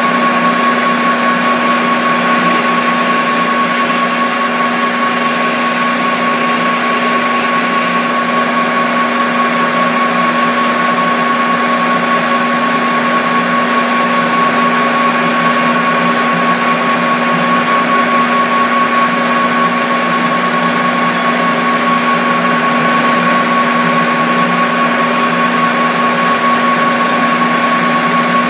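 Metal lathe running at steady speed with a constant whine, its three-jaw chuck spinning a rod while a twist drill bores a hole into the rod's end. A high hiss joins from about two to eight seconds in.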